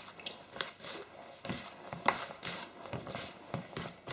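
Fingertips rubbing block margarine into a flour mix in a plastic mixing bowl: soft, irregular rustles and crumbly squeezes as the fat is worked in towards fine breadcrumbs.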